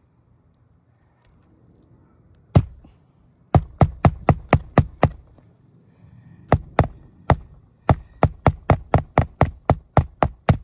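A hammer driving roofing nails through asphalt shingles: sharp blows in quick runs of about four a second, pausing once partway through, as the shingle row is fastened down.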